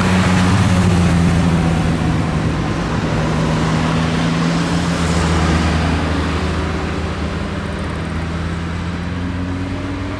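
A car engine running at low, steady revs, loudest about a second in and then slowly fading.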